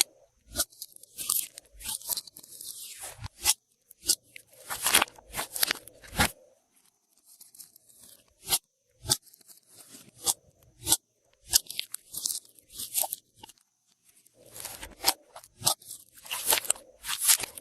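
Glossy slime being squeezed, stretched and folded by hand, giving irregular wet clicks, pops and crackles with short pauses between handfuls.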